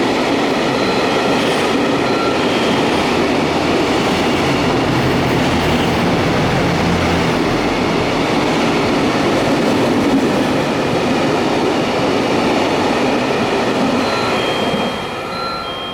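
A train running on the rails at close range, a loud steady rumble of wheels and running gear with a few brief high squeaks, dropping away about fifteen seconds in.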